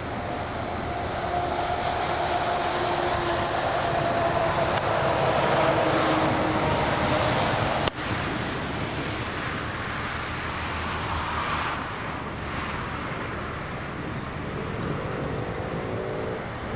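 Motor vehicle noise: a steady rush of road and wind noise, with an engine tone that falls slowly in pitch over the first several seconds. A sharp click comes about eight seconds in, and an engine tone rises near the end.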